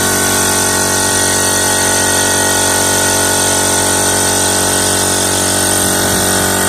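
Electric air compressor motor running steadily with a mechanical drone and a high whine. It is running normally on a newly fitted 20 µF start-and-run capacitor, which cured its fault of humming without starting caused by a failed capacitor.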